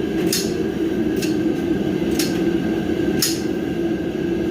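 Sharp metallic clicks about once a second, typical of a ratchet wrench being worked on the cart's 10 mm bolts, over a steady low drone of machinery running in the garage.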